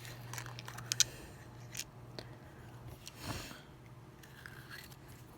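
Faint clicks and light rustling of a small plastic toy capsule and its paper insert being handled and opened, with a few sharp clicks in the first couple of seconds.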